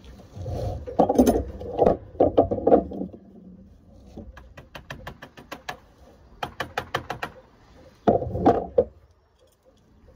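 Code 5 lead sheet being dressed down over an edge with a lead dresser: clusters of dull knocks, then quick runs of sharper taps at about five a second, then a last group of thuds near the end.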